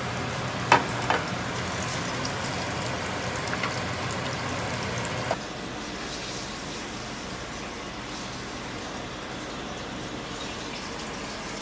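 Grouse and rabbit pieces frying in vegetable oil in a pan, a steady sizzle with a few sharp clicks. About five seconds in the sizzle cuts off, leaving quieter steady room noise.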